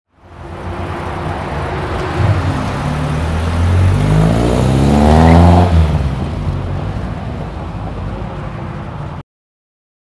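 BMW E30 M3 Sport Evolution's 2.5-litre four-cylinder engine under hard acceleration, its note rising steadily in pitch, then dropping suddenly a little past halfway and running on at a lower pitch before the sound cuts off abruptly near the end.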